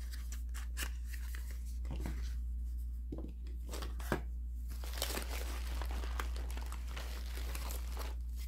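Handling of cosmetic packaging: small paperboard lipstick boxes tapped and set down, then a plastic mailer bag crinkling and rustling as a hand rummages in it, most densely in the second half.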